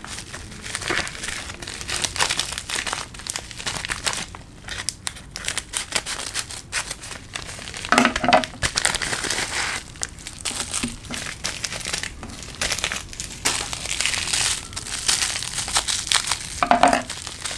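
Plastic packaging crinkling as hands handle a poly mailer bag and unwrap bubble wrap from a pen: continuous rustling and crackling with many small sharp crackles.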